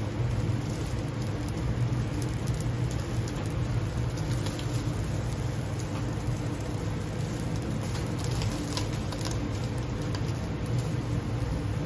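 Chicken yakitori skewers sizzling and crackling on a commercial gas grill as fat drips and flares on the burner, the crackle thickening twice. A steady low hum runs underneath.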